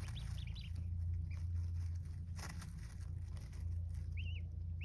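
Young ducklings peeping a few short times, a couple of peeps at the start and a quick run of them near the end, with light rustling in wood shavings over a steady low hum.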